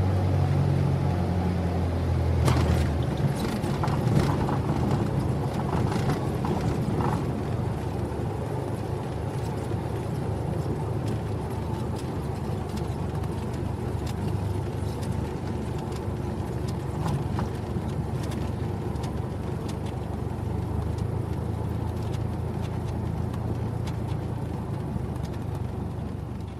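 Cabin interior of a single-engine Cessna landing: the propeller engine's steady tone drops away about two seconds in, then a run of knocks and rattles as the wheels touch down, followed by a steady rolling rumble that fades out at the end.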